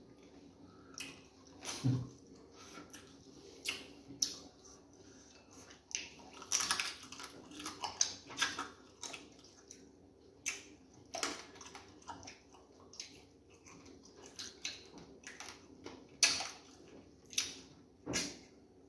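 Close eating sounds of egusi soup and fufu: irregular wet smacks, clicks and chewing, a few of them sharper and louder than the rest.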